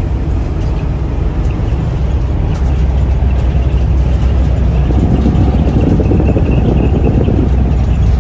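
Steady low road and engine rumble inside the cab of a Ford E450 Super Duty–chassis motorhome cruising at highway speed, getting a little louder about two and a half seconds in and rougher for a couple of seconds around the middle.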